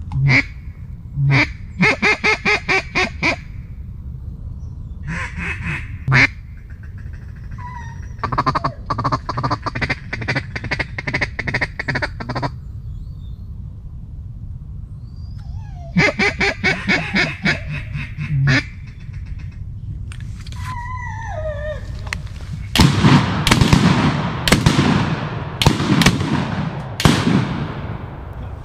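Mallard duck calls blown in several loud strings of rapid quacks. Then, from about 23 seconds in, a volley of around six shotgun shots, each with a long echo.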